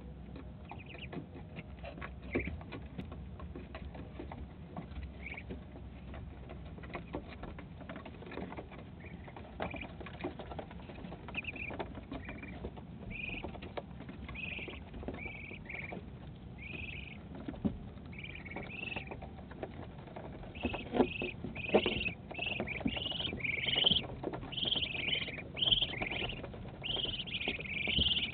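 Young Muscovy ducks peeping: short high calls, sparse at first, coming thick and loud over the last several seconds. Scattered knocks and scratching sound close to the microphone as a duck noses at the camera.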